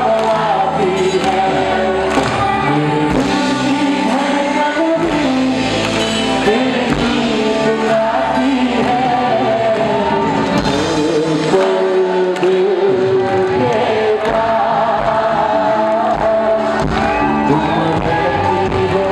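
A male singer singing a song live into a handheld microphone over instrumental accompaniment, amplified through a PA system in a large hall.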